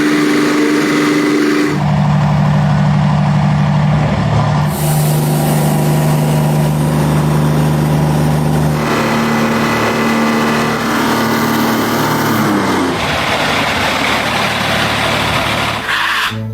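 Wood-Mizer portable band sawmill running, its engine and band blade cutting through a magnolia log. The steady machine tone shifts in pitch several times.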